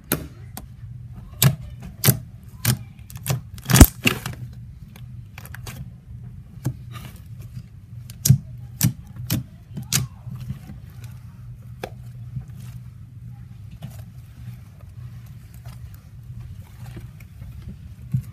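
Fingers poking and squishing fluffy slime, making irregular sharp clicks and wet pops, the loudest about four seconds in. A low steady hum runs underneath.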